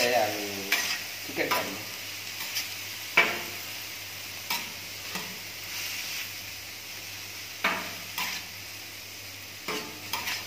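Metal spatulas stirring and scraping shredded roti and vegetables for kottu on a hot flat-top griddle, with irregular sharp clacks of metal on the griddle every second or two over a steady sizzle.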